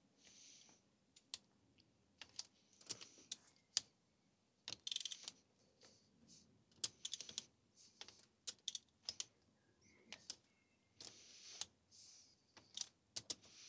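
Ratchet torque wrench tightening the camshaft bearing cap nuts on a VW 16V cylinder head: short bursts of rapid ratchet clicking between single sharp clicks and knocks of the tool on the caps, in an irregular pattern.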